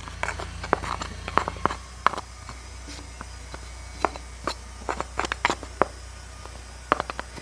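Irregular light clicks and taps of a small chainsaw and its newly fitted chain being handled, over a low steady hum.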